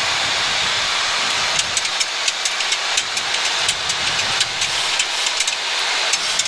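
Steady hiss of flight noise in the cockpit of a Boeing 737-800 on approach, with a scatter of short sharp clicks at irregular spacing from about a second and a half in.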